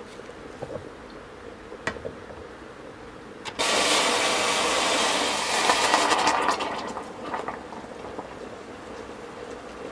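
Water rushing for about three seconds, starting abruptly a few seconds in, swelling with a few crackles and then tailing off.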